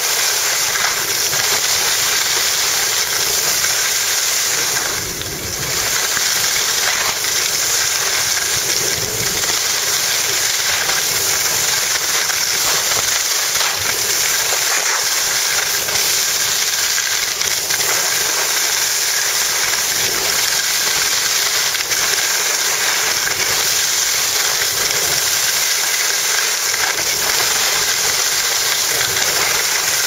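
Steady, loud rushing hiss of wind buffeting the camera's microphone, mixed with the scrape of sliding over packed snow, while descending a ski slope at speed. It dips briefly about five seconds in.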